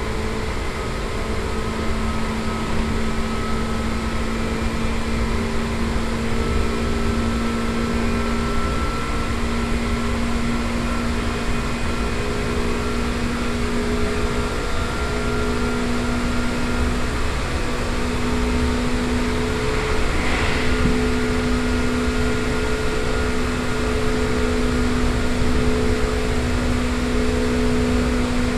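Seibu 2000 series electric train with field-chopper control, heard from inside the car at running speed: a steady traction motor whine over wheel and rail noise, its pitch creeping slightly upward, with a brief rattle about twenty seconds in. The motors turn fast for the speed, which the recordist puts down to the wheels perhaps having just been reprofiled.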